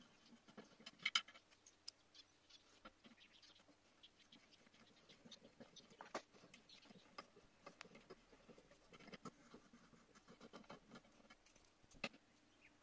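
Faint clicks and light scrapes of small metal hand tools, a tap wrench with its tap and a digital gauge, being handled on a workbench. A sharper click comes about a second in, another around six seconds in, and one near the end.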